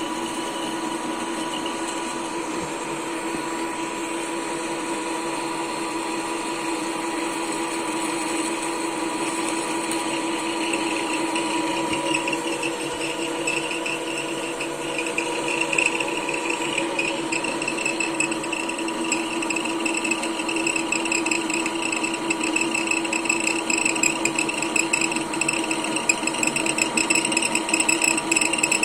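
A machine tool running steadily on its own. A rattling clatter grows louder and more uneven from about halfway through.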